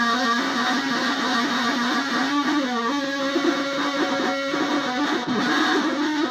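Bare loudspeaker cone buzzing with a rough pitched tone while a battery lead is held against its voice-coil wire. The contact keeps making and breaking, so the pitch wavers and shifts.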